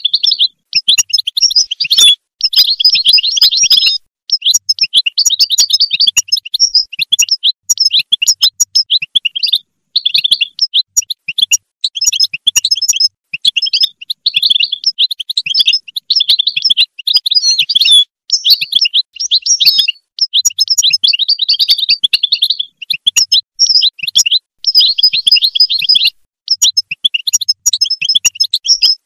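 European goldfinch singing: fast runs of twittering notes in phrases of a few seconds, with short breaks between phrases.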